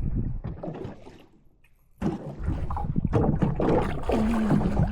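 Water splashing and knocking against the boat as a hooked catfish is hauled up on a trotline. A brief lull, then from about two seconds in a loud stretch of splashing with many sharp knocks, and a short steady hum near the end.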